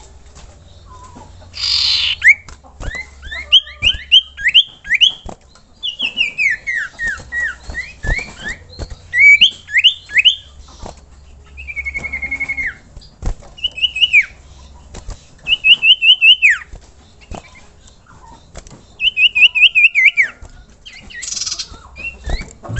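An iora (cipoh) singing short series of quick, loud, down-slurred whistled notes, repeated in separate phrases, with one fast even trill about midway. There are two brief rustling bursts, one near the start and one near the end.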